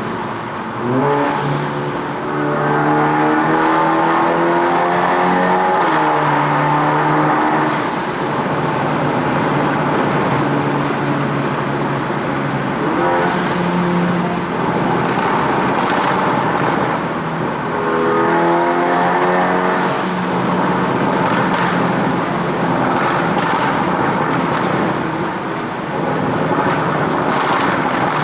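Tuned Seat Ibiza Cupra 6J 1.4 TSI four-cylinder engine revving up through the gears, its note climbing in several sweeps, with sharp exhaust pops, bangs and crackles on the lift-off between pulls. The sound echoes off the tunnel walls.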